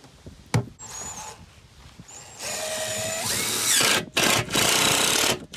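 DeWalt cordless drill driving screws through the plastic drum into an OSB floor. It runs in two bursts, the first starting about halfway in with the motor whine rising as it speeds up, and the second following a brief pause.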